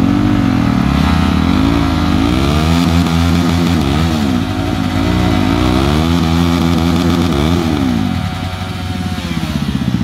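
Sport motorcycle engines revved at a standstill. The pitch rises and falls again and again, then settles back toward a steady idle near the end.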